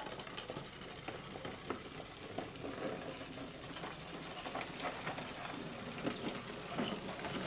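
Hard plastic wheels of children's Big Wheel-style tricycles rolling over asphalt, a steady gritty rumble full of small clicks and rattles that grows a little louder toward the end.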